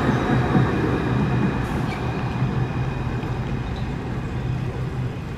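Alstom Citadis 403 tram moving away after passing close by, its low running noise fading steadily, with a faint high whine over it.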